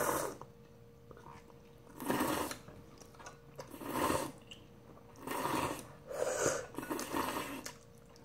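Instant ramyeon noodles being slurped from bowls with chopsticks, about six short slurps spaced a second or two apart.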